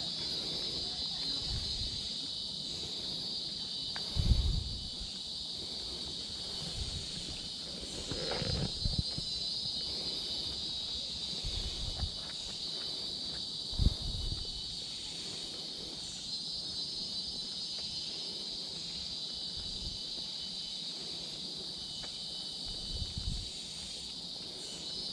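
Steady high-pitched drone of a tropical insect chorus that swells and eases every few seconds. A few dull low thumps cut in, the loudest about four and fourteen seconds in.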